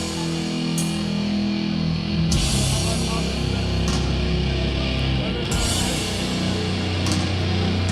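Sludge/doom metal band playing live: heavily distorted, down-tuned guitars and bass holding long low notes, with drum crashes about every one and a half seconds.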